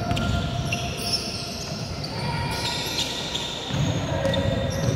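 Basketball game play on a hardwood court: the ball being dribbled and bouncing, with short high-pitched squeaks of sneakers on the floor as the players cut and stop.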